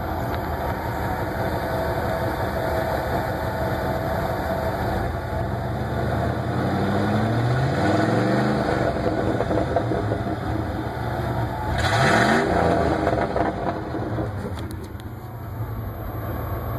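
Straight-piped 1995 Ford F-150 exhaust, 2.5-inch pipe with no muffler, idling and revved several times. The engine note rises in short runs, and the loudest rev comes about twelve seconds in.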